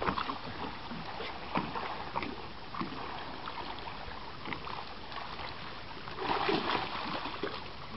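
Water splashing and sloshing as a large fish thrashes in shallow water at the end of a line being hauled in, with a louder burst of splashing about six seconds in.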